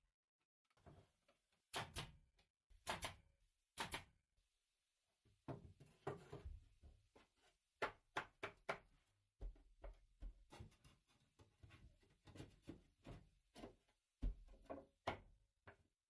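Loose wooden shelf boards knocking and clacking as they are handled and set into place in a wooden shelving unit, a string of irregular knocks in a small room.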